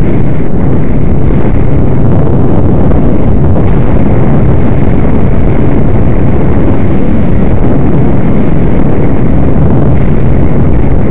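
ATV engine running under way along a gravel trail, a loud, steady, even noise with no letup.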